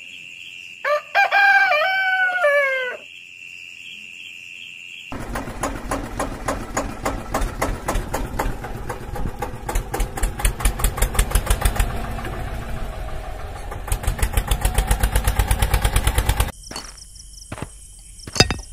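A rooster crows once, about a second in, over a steady high chirring like crickets. From about five seconds in an engine runs with an even chugging pulse, like a diesel tractor, and cuts off suddenly about sixteen seconds in, followed by a few clicks near the end.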